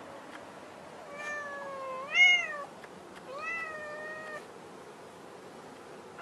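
Domestic cat meowing twice. The first meow is long and rises in pitch to a loud peak near its end; the second is shorter and steadier.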